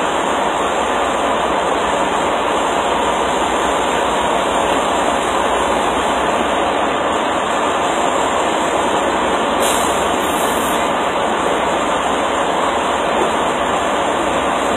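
Steady, even rushing noise with no rhythm or pitch, and a brief extra hiss about ten seconds in.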